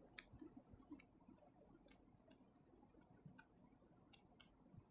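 Near silence with faint, irregular clicks and taps of a pen writing.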